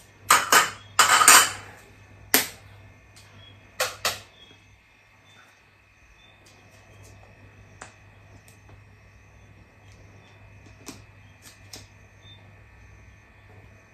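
Plastic ice cream tub being handled and its lid worked open: several loud, short scraping and rustling noises in the first four seconds, then only a few faint clicks and taps.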